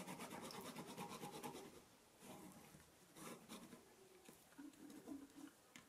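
Fabric marker pen drawing a line on cotton fabric along a ruler: a faint, quick scratching for the first couple of seconds, then only a few soft rustles and taps.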